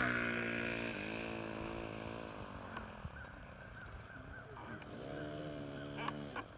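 Model airplane's O.S. FS-40 four-stroke glow (nitro) engine running at low throttle as the plane taxis on grass. Its pitch dips and rises several times as the throttle is worked, and it grows fainter as the plane moves off, with a few sharp ticks near the end.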